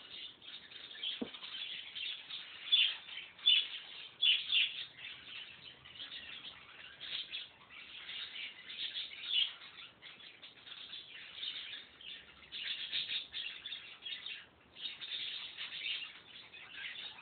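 Birds chirping and twittering in quick, irregular runs with short pauses, and a single knock about a second in.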